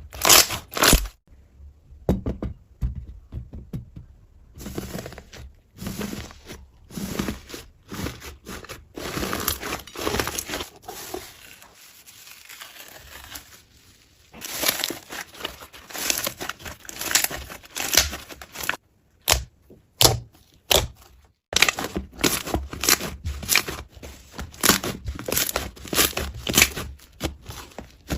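Slime being squeezed, poked and stretched by hand, giving irregular crackling, popping and squishing clicks that come in clusters, with a few brief pauses.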